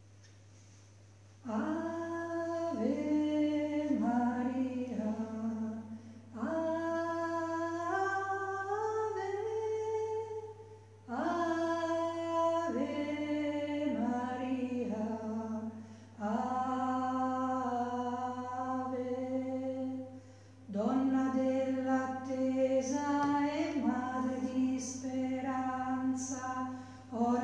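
Unaccompanied sung hymn opening the Mass: a single melodic line in five phrases, with short pauses for breath between them. A faint steady low hum runs underneath.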